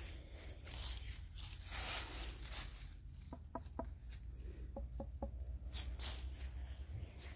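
A watermelon being knocked on with the knuckles to judge its ripeness: two quick sets of three knocks, each with a brief pitched ring. Before the knocks, leaves and grass rustle as the vines are brushed aside.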